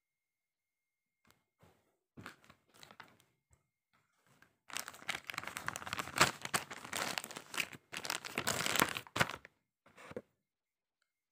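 Packaging being handled: scattered rustles at first, then about five seconds of dense crinkling and crackling, and a last brief rustle near the end.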